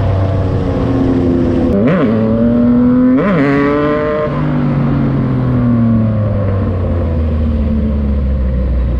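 Yamaha MT-09's inline-three engine through a Racefit Slash exhaust, blipped twice in quick throttle stabs about two and three seconds in. After that it runs on with its pitch slowly falling.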